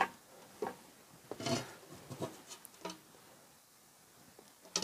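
A Neu Master hand pull rivet gun being worked on a blind rivet: a few short clicks and knocks as the handles are squeezed and the jaws grip and draw the mandrel, then a sharp snap right at the end as the mandrel breaks off and the rivet is set.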